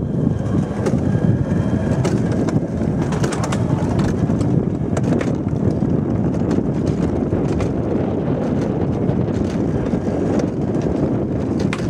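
Alpine coaster sled running down its metal rail tube, the wheels giving a steady low rumble with scattered clicks and rattles.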